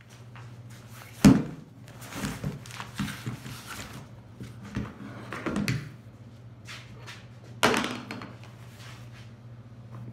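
A camera tripod and its handle parts being set down and handled on a workbench: a loud thunk about a second in and another near the end, with lighter knocks and rustling between. A steady low hum runs underneath.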